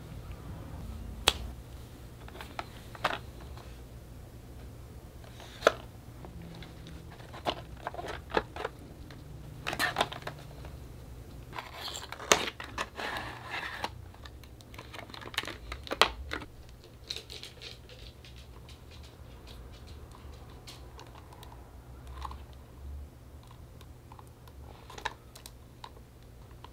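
Unboxing sounds: scattered sharp clicks and taps of a clear plastic AirPods case and its cardboard box being handled, with a rustling slide of packaging about halfway through.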